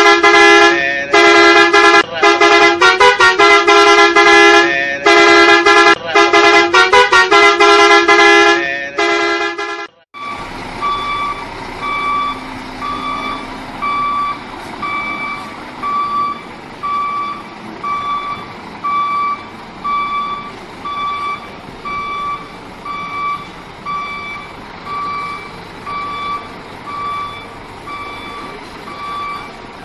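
A loud multi-tone musical horn plays a quick tune of changing notes. After about ten seconds it breaks off, and a Scania coach's reversing alarm beeps steadily about once a second over the low running of its engine.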